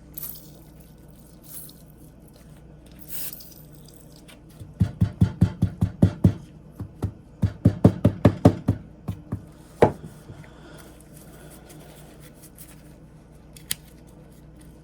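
A spray bottle squirting two short hissing sprays, then two runs of quick, even knocking strokes, about seven a second, and a single sharp click near the end.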